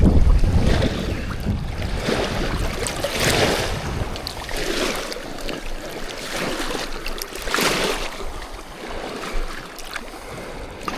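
Water sloshing and lapping at the bank edge in irregular swells, with wind buffeting the microphone at the start.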